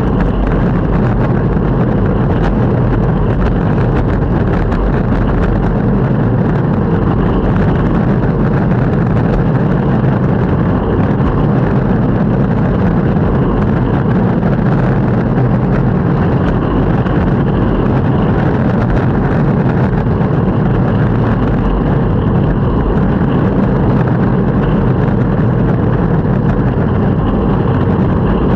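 Longboard wheels rolling over pavement: a steady, loud rumble with a grainy texture that does not let up.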